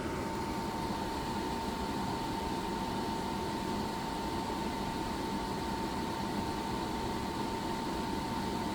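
EcoFlow Wave portable air conditioner running in fan-only mode at its highest fan speed, compressor off: a steady rush of moving air with a thin, steady high whine.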